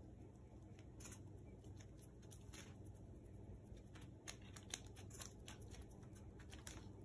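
Near silence: faint rustling and light scratching, which fits a pet hedgehog walking over disposable pee pads, over a steady low hum.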